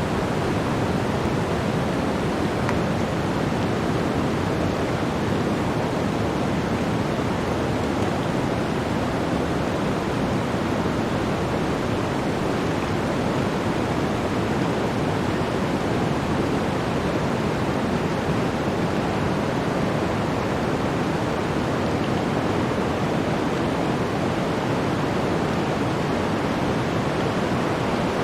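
Blizzard wind rushing as a steady, even hiss, with no separate gusts standing out.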